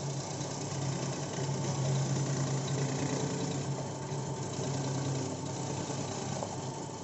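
Cassava chip slicing machine running steadily, its motor humming as it cuts, a little louder a second or so in.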